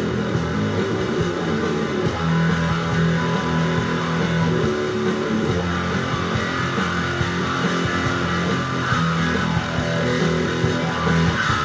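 Rock music with electric guitar and bass guitar playing an instrumental passage, without vocals.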